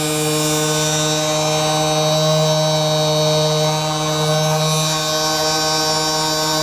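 Handheld electric vibration massager running with a steady, constant-pitch buzz, used on the back to relax and loosen the muscles before adjustment.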